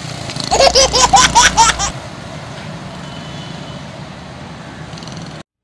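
A high-pitched voice gives a quick run of about seven rising-and-falling yelps over steady road noise from passing traffic. The sound then cuts off suddenly near the end.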